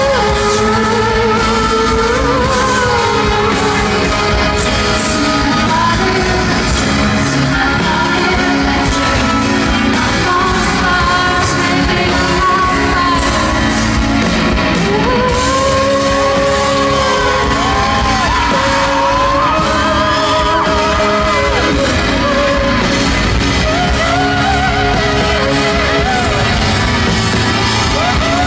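Live pop concert in a large hall: a woman singing long, gliding lines over her band, with fans yelling in the crowd.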